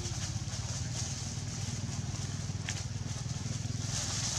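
A steady low rumble like a small engine running, with a high hiss above it and a single brief click a little after halfway.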